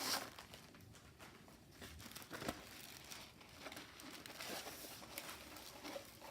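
Kit packaging being handled, crinkling and rustling faintly, with a slightly louder rustle at the very start and small clicks scattered through.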